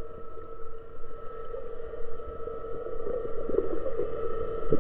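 Steady underwater hum of a boat engine carried through the water, holding two constant tones, with light crackling and a few soft knocks near the end.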